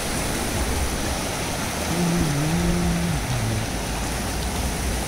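Sea surf washing in over shallow water and rocks, a steady rushing with wind on the microphone. About two seconds in, a short low tone sounds for about a second and a half.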